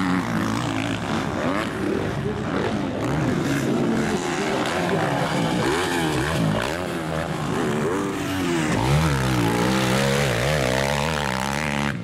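Motocross bike engines revving hard and dropping back as riders accelerate, shift and back off around the dirt track, the pitch rising and falling over and over.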